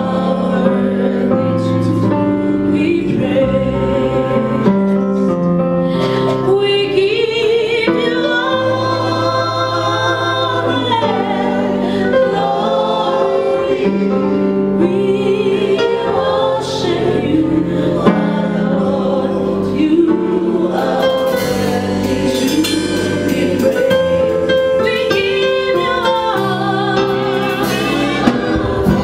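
Live gospel song: a woman sings lead through a microphone, wavering on held notes, over sustained keyboard chords with backing singers joining in.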